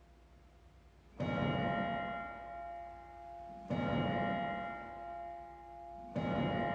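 A bell tolled three times, about two and a half seconds apart, each stroke ringing on and still sounding when the next one is struck.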